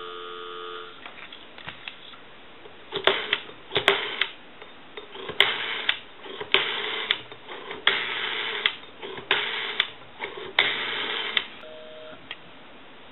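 A rotary telephone on a test line: dial tone for about the first second, then the rotary dial wound round and released for several digits, giving a string of half-second clicking, whirring bursts. Near the end a short beep of busy signal comes through, because the number dialled is busy.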